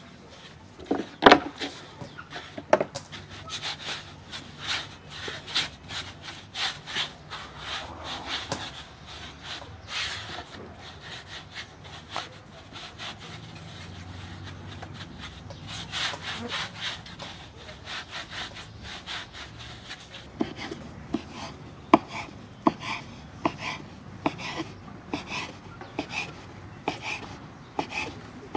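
Hands rolling a rope of dough back and forth on a floured wooden board, a repeated rubbing. In the last third, a knife cuts the dough rope into pieces, tapping sharply on the wooden board about twice a second.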